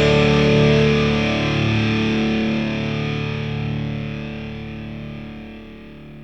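Rock music ending on a held distorted electric guitar chord that rings and slowly fades out.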